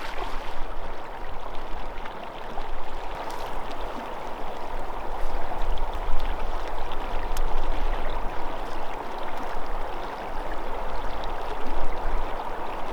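River water flowing, a steady rushing of current.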